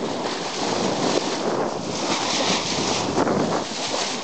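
Sea water rushing and splashing along a boat's bow, with wind buffeting the microphone in uneven gusts.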